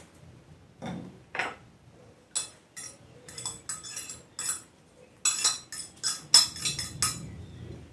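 Kitchen utensils clinking and tapping against dishes in a series of sharp, light clicks, with the busiest run of clicks from about five to seven seconds in.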